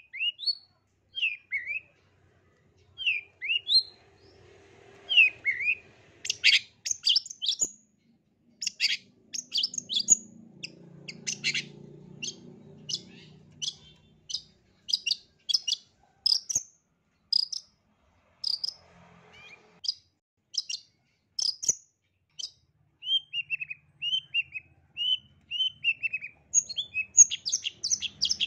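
Long-tailed shrike singing: short downward-sliding notes at first, then a long run of quick, sharp, high notes, a string of falling notes later on, and quick notes again near the end.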